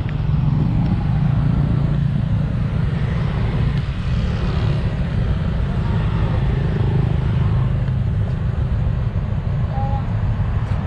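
Street traffic of motorbikes and cars passing on a city road: a steady low rumble.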